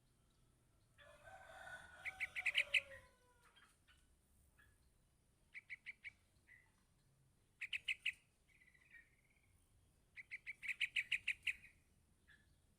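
Yellow-vented bulbul chick begging for its parent: bursts of rapid, high chirps, four or five to about ten per burst, with the longest burst near the end. About a second in, a longer, lower call that falls in pitch sounds under the first burst.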